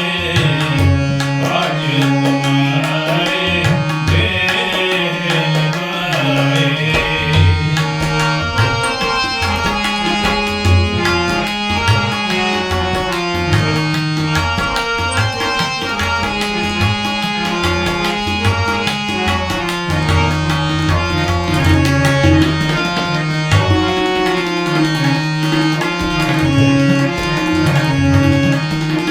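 Instrumental passage of Sikh Gurbani kirtan: tabla playing a steady rhythm with deep bass strokes, under long held melodic notes.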